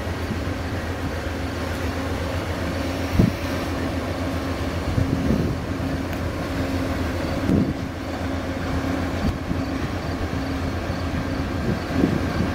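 Steady low hum of a stopped Amtrak Superliner passenger train idling at the platform, with a few scattered thumps.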